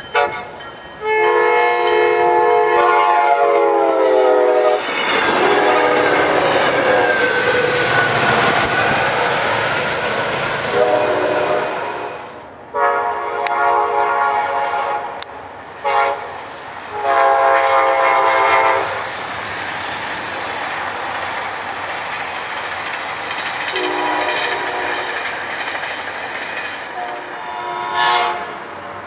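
Locomotive air horns and passing trains at grade crossings. A long chord blast that drops in pitch as the train goes by gives way to the loud rush and clatter of the passing train, then a horn sounds the grade-crossing signal: long, long, short, long. Fainter horn blasts and train rumble follow near the end.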